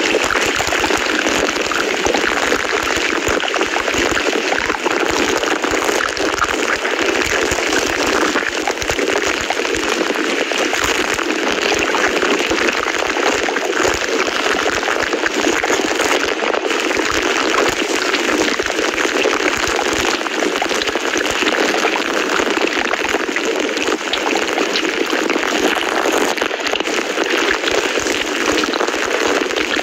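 Steady rain sound: an even, unbroken rushing hiss that doesn't change.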